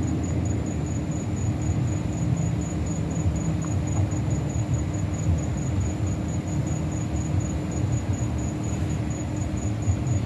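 Night-time outdoor ambience: a steady low rumble and hum, with an insect, likely a cricket, giving a high, thin chirp in even rapid pulses, a few per second.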